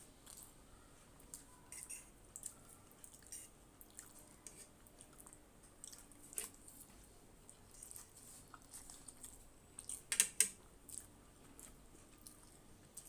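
Close-miked eating of Maggi masala instant noodles: soft, wet chewing with scattered small mouth clicks, and a louder cluster of clicks about ten seconds in.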